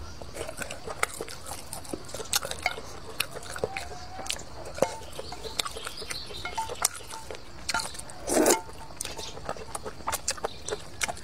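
Close-up eating sounds: wet chewing and lip smacks with many small sharp clicks. There is a loud noodle slurp about eight and a half seconds in.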